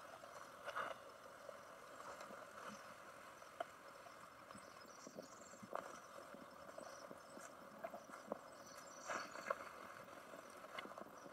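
Faint, scattered soft taps and clicks of sliced toppings (mushrooms, tomato slices, red pepper strips) being laid by hand onto a raw pizza in a metal pan, over a quiet hiss.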